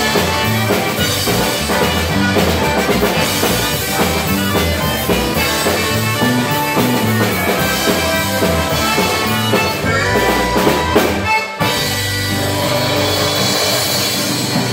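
Live Cajun band playing: a button accordion leads over acoustic guitar, pedal steel guitar, bass and drum kit. The music drops out briefly about eleven and a half seconds in, then carries on.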